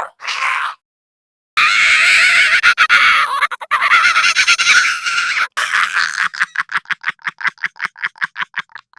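Gremlin creature sound effect: a short squeal, a brief silence, then a loud harsh screeching hiss for about four seconds that breaks into rapid chattering, about seven pulses a second.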